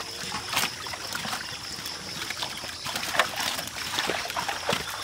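Water splashing and sloshing as a net crowded with tilapia thrashes at the surface while the fish are hauled in and scooped out, with many irregular splashes.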